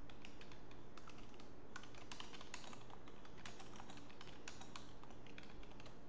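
Typing on a computer keyboard: a run of irregular key clicks as a short phrase is entered, over a steady low background hum.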